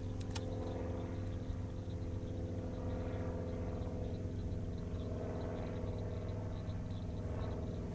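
Boat motor running with a steady low hum, with a single sharp click just after the start.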